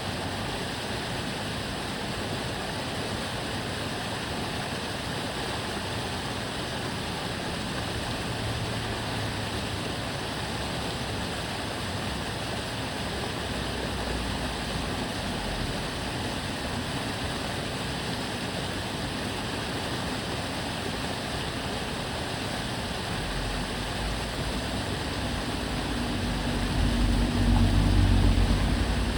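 Water of the Tamagawa Josui canal babbling and rushing steadily. Near the end a passing vehicle's low rumble swells and fades.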